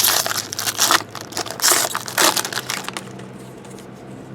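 Foil wrapper of a trading-card pack crinkling and tearing as it is ripped open: a run of harsh crackles for about two seconds, then only faint handling.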